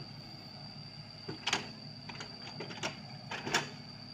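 Sany SY55C mini excavator running steadily, a low engine hum with a thin high whine over it, broken by several sharp clicks and knocks from the working machine, the loudest about a second and a half and three and a half seconds in.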